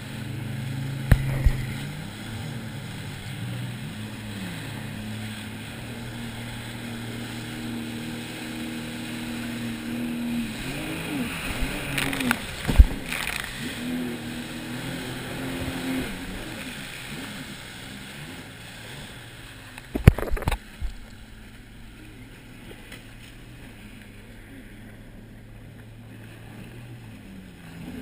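Sea-Doo personal watercraft engine running, its pitch rising and falling as the throttle opens and closes, with sharp thumps of the hull slamming onto the waves about a second in, near the middle, and about two-thirds of the way through. After the last thump the engine settles to a lower, quieter note.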